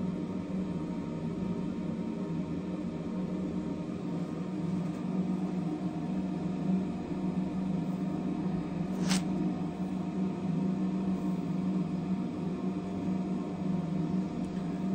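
Steady low mechanical hum, with one short sharp click about nine seconds in.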